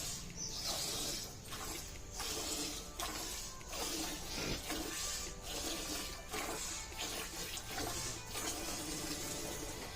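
Buffalo being milked by hand: jets of milk squirt into a pail in a steady rhythm, a hissing spurt about every half to three-quarters of a second.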